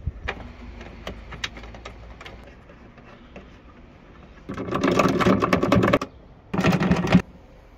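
Ratchet wrench clicking rapidly as it tightens a nut on a car's rear wiper motor. Light clicks and knocks of handling come first. A longer run of ratcheting starts about halfway through, and a shorter one follows near the end.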